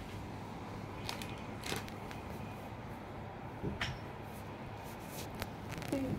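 Quiet room tone with a low steady hum and a few faint, short clicks or rustles scattered through it.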